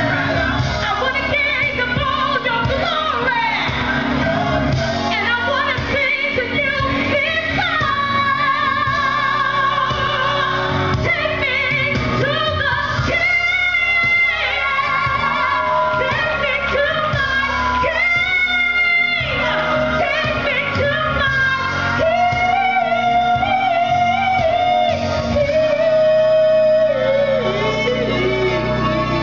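A gospel song: a singer's voice over musical accompaniment, with several long held notes.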